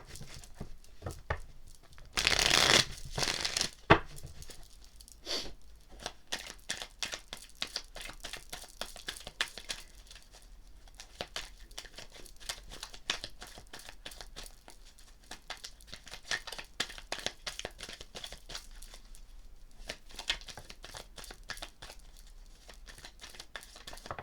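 Tarot deck being shuffled by hand: a loud swish of cards a couple of seconds in, then a long run of quick card clicks and rustles.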